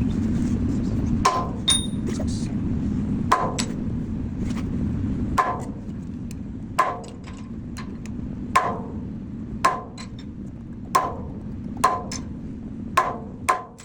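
Hammer blows on hot steel on an anvil, about eleven strikes at an uneven pace of roughly one a second, each with a short ring. A steady low rumble underneath fades out about five seconds in.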